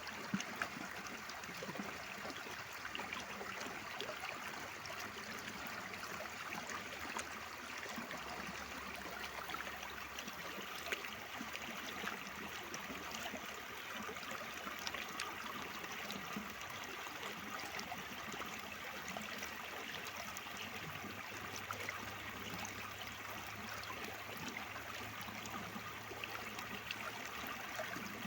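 Mountain stream water flowing steadily, with many small splashes and drips on top of the rushing.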